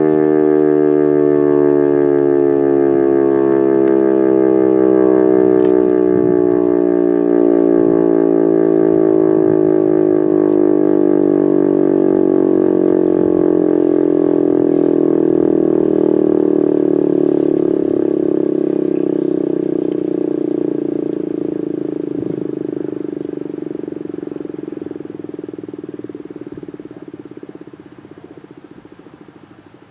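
Federal Signal RSH-10B outdoor warning siren winding down at the end of a test: a wail with many overtones that falls slowly in pitch. It stays loud for the first half, then fades steadily over the last ten seconds or so as the rotor coasts down.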